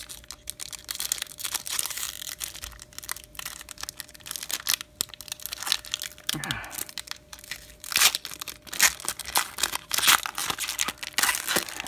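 Wrappers of 2018 Topps Opening Day baseball card packs being torn open and crinkled in the hands, with cards shuffled between the fingers: a dense run of irregular crackles and tearing.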